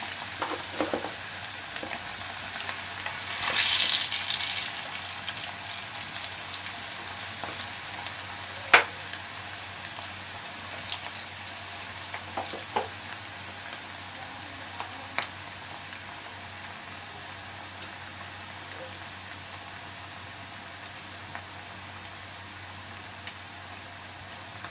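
Potato pieces deep-frying in hot oil, a steady sizzle, with a louder surge of sizzling about four seconds in. A few sharp clinks of a utensil against the pan, the loudest about nine seconds in.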